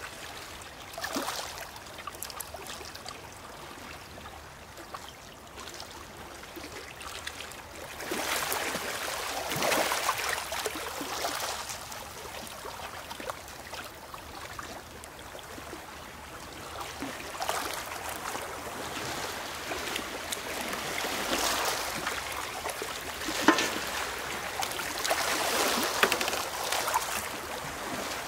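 Seawater pouring in a thin trickle from a metal bucket through a plastic funnel into a glass bottle, over small waves washing on the stones that swell louder now and then. A single sharp knock comes near the end.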